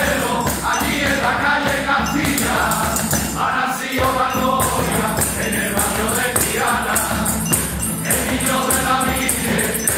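A men's choir singing together, accompanied by strummed acoustic guitars and a jingling tambourine.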